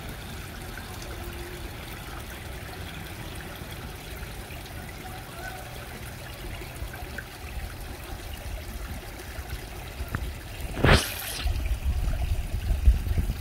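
Water trickling steadily in a small fish pond with its pumps and skimmer running. About eleven seconds in there is a brief loud whoosh, followed by low rumbling.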